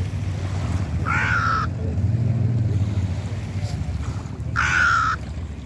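Hooded crow giving two harsh caws, about a second in and again near the end, over a steady low rumble.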